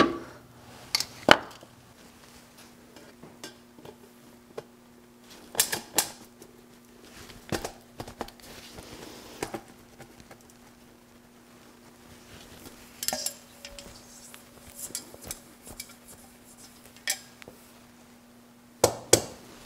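Stainless steel exhaust pipe and fittings clinking and knocking as they are handled, in scattered sharp metallic strikes, a few clustered in pairs.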